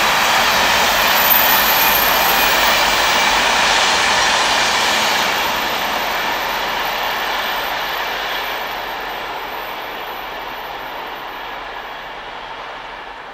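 Container freight train's wagons rolling along the rails, a steady rumble and rattle that fades away over the last several seconds as the end of the train recedes.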